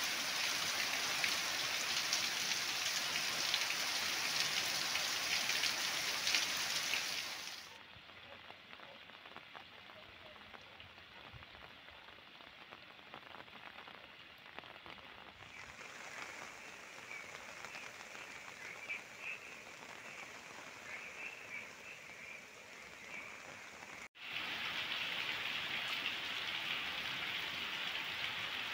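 Heavy rain falling as a steady, dense hiss. It is loud at the start, drops much quieter after about seven seconds, and faint chirping calls come in through the quieter middle part. The loud downpour returns after a sudden break near the end.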